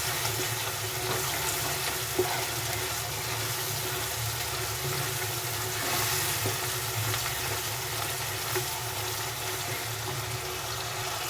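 Onion, tomato and spice masala sizzling in hot oil in a pan while a spoon stirs it, with a few light scrapes and clicks, as the masala is cooked down until it comes together.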